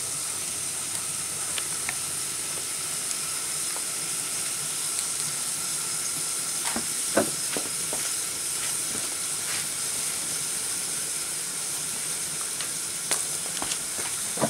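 Open wood fire burning under a lidded cooking pot: a steady hiss with scattered crackles and pops from the burning wood, the loudest cluster about seven seconds in.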